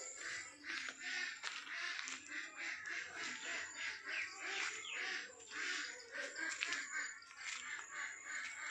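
Garden birds chirping and calling all around in a busy, overlapping chorus, with a thin steady high tone beneath it.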